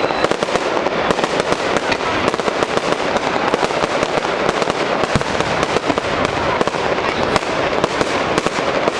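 Fireworks crackling densely: a rapid, unbroken stream of sharp pops and crackles with no pause.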